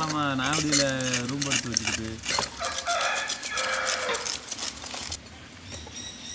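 Chickens calling, with one long drawn-out call in the first two seconds, over the scratchy clicks of knives scaling and cutting snakehead murrel fish.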